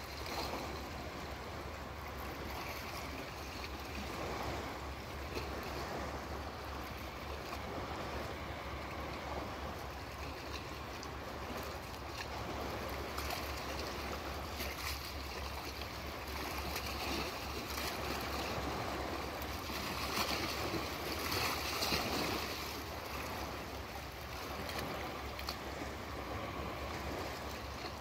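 Calm sea with small waves washing and lapping at the water's edge in a steady, even wash that swells a little about three quarters of the way through.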